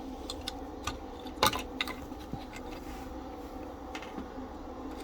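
Scattered small clicks and taps from handling the opened, desoldered clock spring parts, the loudest about one and a half seconds in, over a steady low hum.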